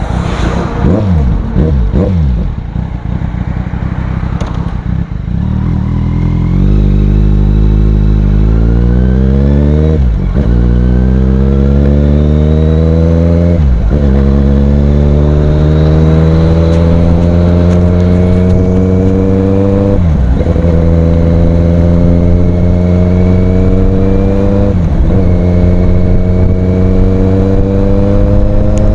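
Kawasaki Z800's inline-four engine through an aftermarket Ixil exhaust, accelerating hard through the gears. After a few seconds of the note falling and wavering, the pitch climbs steadily, drops briefly at each of four upshifts, then climbs again.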